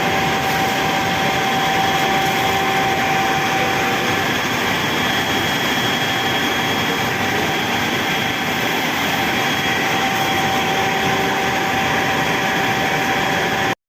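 Large 6.6 kV high-tension electric motor running on its trial run after lead repair. It gives a steady loud whirring rush with a constant whine held throughout.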